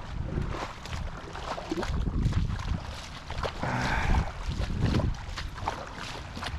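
Wind buffeting the microphone in uneven gusts over the wash of waves on a beach.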